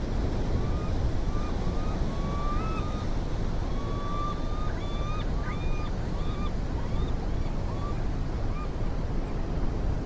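Ocean surf washing steadily over a rocky shore, with a bird calling in a run of short, high notes, some gliding up, that stop shortly before the end.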